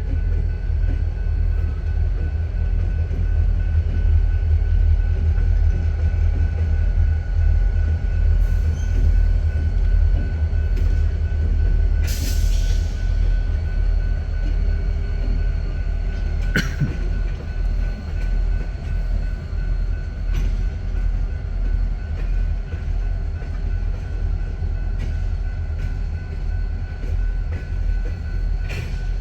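Union Pacific local freight train rolling past on the rails: a steady heavy rumble of the cars, with a steady high whine and a couple of sharp knocks about 12 and 16 seconds in.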